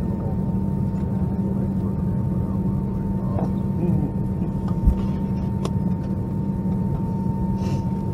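Steady cabin hum of an Airbus A321 parked at the gate, a constant low drone with a thin high whine held over it, broken by a few light clicks and a soft thump about five seconds in.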